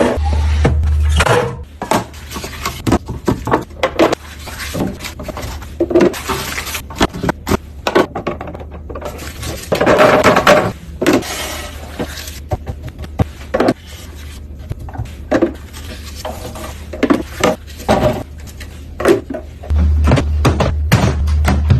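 Household containers and kitchenware being handled and set down: many short clinks, taps and knocks, with a denser stretch of noise about ten seconds in. A steady low hum sits under the first second and the last two seconds.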